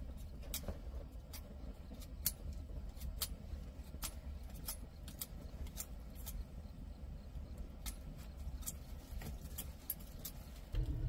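Sharp, irregular crackles, two or three a second, over a steady low rumble; the rumble grows louder just before the end.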